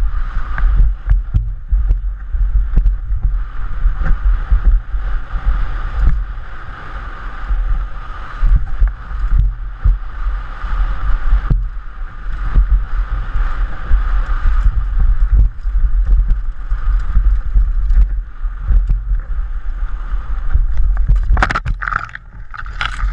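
Downhill mountain bike rattling and knocking over rough dirt trail at speed, under a constant wind rumble on the microphone. Near the end comes a burst of loud impacts as the bike goes down in a small crash.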